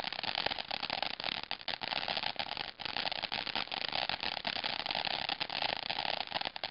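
Ground fountain firework spraying sparks: a steady hiss packed with rapid crackling.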